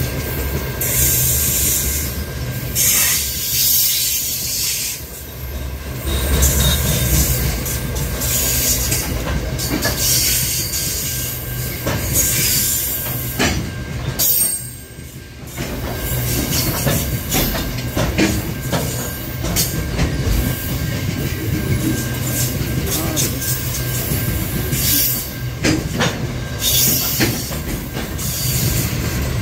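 Freight train of covered hopper wagons rolling past close by: a steady low rumble of wheels on rail, with high rushing noise that swells and fades as the wagons pass and occasional sharp clicks at the rail joints.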